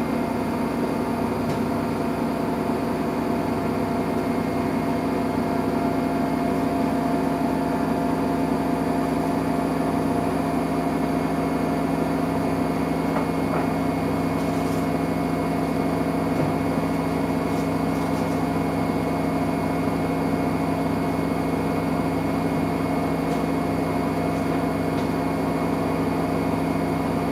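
Samsung Eco Bubble washing machine running on a cotton wash, a steady motor hum with a constant low drone and no pauses.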